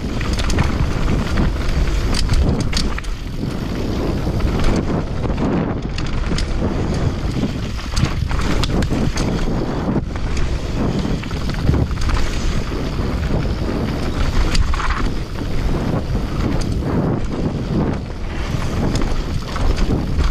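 Commencal V4.2 downhill mountain bike descending a rough trail: wind buffets the camera microphone over a steady rush of tyres on dirt and rock, broken by frequent sharp clacks and knocks from the chain, suspension and wheels striking rocks and roots.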